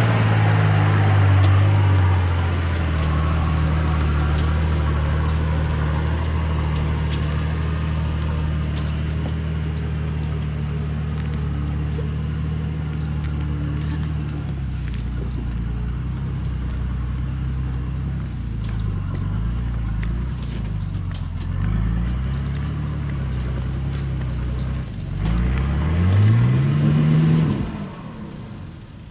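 Motor vehicle engine running steadily, its pitch wavering as the throttle changes. Near the end it revs up sharply to its loudest, then drops off.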